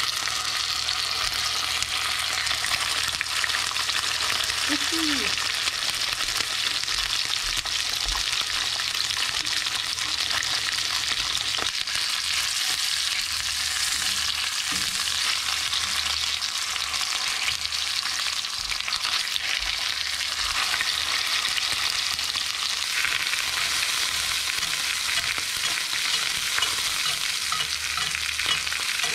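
Whole trout frying in hot oil in a cast-iron skillet: a steady, fairly loud sizzle.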